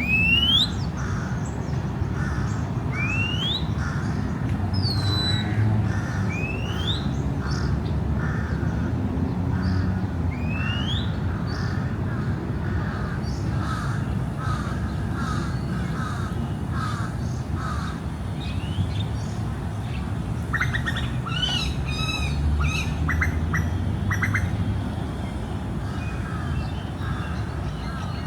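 Crows cawing repeatedly, mixed with other birds giving quick rising whistles and a burst of busy calling about two-thirds of the way in, over a steady low rumble of distant city traffic.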